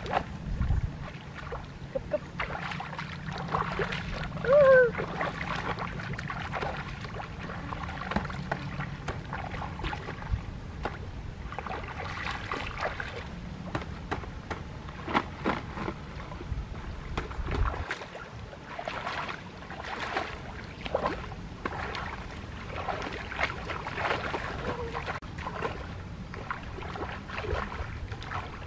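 Shallow stream water splashing and sloshing as people wade and grope along the muddy bottom with their hands, in many short irregular splashes. A brief high-pitched call rings out about five seconds in.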